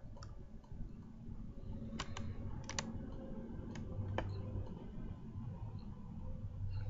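A man quietly puffing on a tobacco pipe: a few faint mouth clicks and smacks at the stem, most of them in the first four seconds, over a low steady hum.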